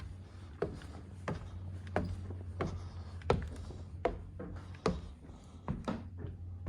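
Footsteps on a bare wooden floor or stairs, sharp knocks at an even pace of about one every 0.7 seconds, over a steady low hum.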